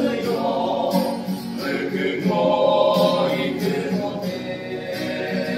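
Male church choir singing a gospel hymn in harmony through microphones, with held chords, over a guitar strummed in a steady rhythm.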